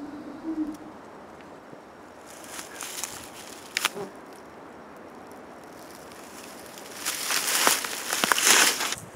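Dry fallen leaves rustling and crunching underfoot, loudest for about two seconds near the end as a person turns and steps through the leaf litter, with a single sharp snap about four seconds in. At the start a low, wavering call fades out.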